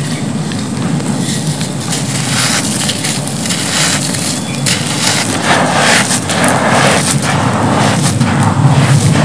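Hands scooping and crumbling dry, gritty cement powder: grains sifting and crunching through the fingers as handfuls are lifted and poured back onto the pile, with irregular crackles that get louder about halfway through.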